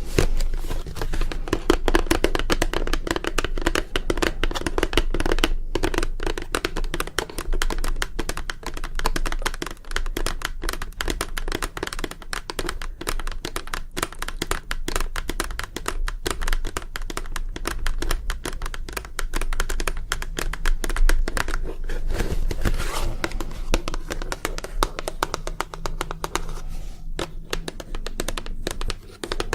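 ASMR tapping: fingers tapping and scratching rapidly and without pause on objects close to the microphone, a dense run of small clicks.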